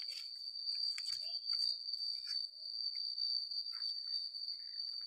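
Insects calling: one steady, unbroken high-pitched tone, with a few faint ticks and taps.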